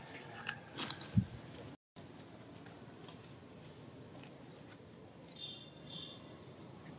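Quiet outdoor background with a few sharp clicks and rustles in the first second, a brief break in the sound, and a short high chirp about five and a half seconds in.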